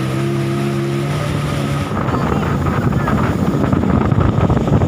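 Small motorboat engine running with a steady hum, which gives way about two seconds in to louder, rough wind buffeting the microphone over water noise.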